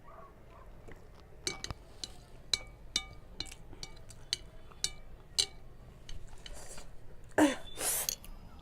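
An eating utensil clinks against a bowl of spicy noodles about ten times, each click ringing briefly. Near the end comes a louder, short rushing sound.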